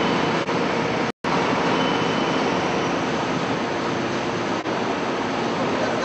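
Hydraulic scrap metal baler running: a loud, steady mechanical noise from the machine's hydraulic drive, cutting out for an instant about a second in.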